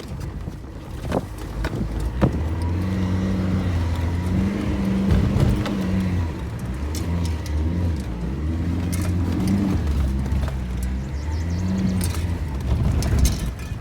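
A heavy vehicle's engine running close by, a low drone that starts about two seconds in, shifts up and down in pitch as it drives, and peaks about five seconds in and again near the end. A few sharp knocks come just before the drone starts.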